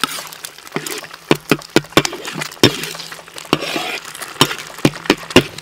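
Metal spatula knocking and scraping against a wok while stir-frying a tomato-and-egg mixture: sharp, uneven clinks, about two or three a second.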